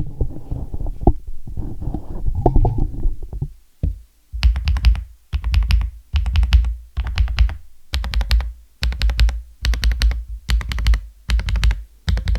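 Aula S75 Pro mechanical keyboard being typed on in short bursts of rapid keystrokes, with brief pauses between them. From about four seconds in the clicks are crisp, with a deep thud under each burst. The sound is clean.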